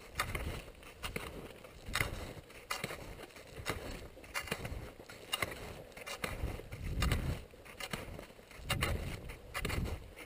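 Alpine touring skis scraping and hissing over hard-packed snow through a series of downhill turns, the noise swelling with each turn, with wind buffeting the microphone and frequent sharp clicks.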